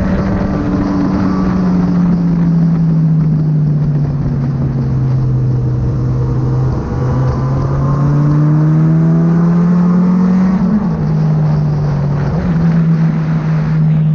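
Kawasaki Z900 motorcycle's inline-four engine running through a Firetong aftermarket exhaust. Its note sinks slowly for about six seconds, climbs for the next four, and drops abruptly about ten and a half seconds in, over a steady rush of noise.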